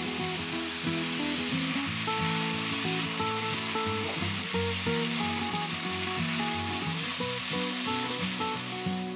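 Gochujang-marinated pork slices sizzling in a hot nonstick frying pan as sliced onion and chili peppers are added and stirred through with chopsticks, with light background music playing.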